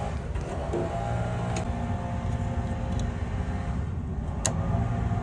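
A steady low mechanical hum, with a few sharp light clicks.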